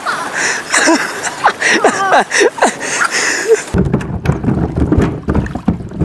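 Floodwater rushing across a road, with excited voices crying out in short, sliding shouts. It breaks off suddenly about two-thirds of the way through, giving way to a low rumble with scattered knocks.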